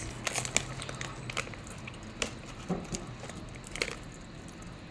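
Scattered light knocks, taps and soft rustles of a person moving about a room and handling things, over a faint steady low hum that fades out about a second and a half in.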